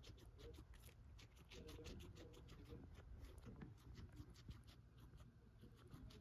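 Guinea pig chewing celery: faint, rapid crisp crunching, about five bites a second, easing off near the end.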